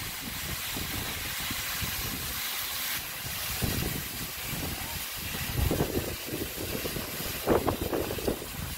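Steady hiss of water from a fire hose spraying a car fire, with an engine running underneath. Irregular low rumbles come in about halfway through.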